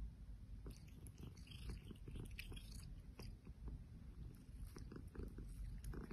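Cat purring close to the microphone, a steady low rumble, with soft clicking mouth sounds mixed in.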